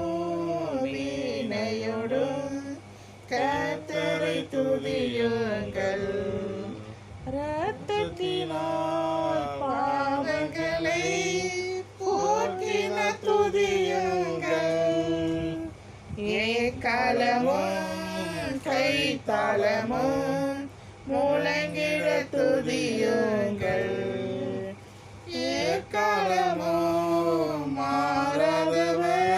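A small family group singing a Christian worship song together in Tamil, women's and children's voices among them, in phrases broken by short pauses every few seconds.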